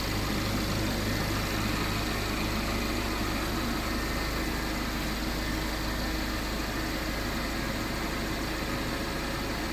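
Steady running noise of an idling car engine, a constant low hum with a hiss over it and no change in pace.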